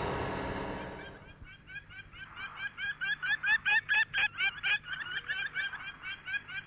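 A rapid series of short, high-pitched animal calls, each note rising and falling, repeating about five times a second. The calls begin about a second in, as an earlier sound fades out, and are loudest in the middle.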